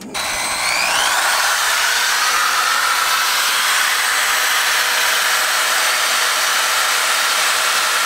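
Handheld electric drill spinning up with a rising whine, then running steadily at full speed against the truck's metal, cleaning it bare for a ground wire connection.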